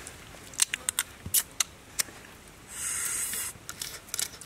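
Close-up eating sounds of cooked crab legs and claws being bitten and chewed: a series of sharp cracks and crunches of the shell, with a longer noisy stretch about three seconds in.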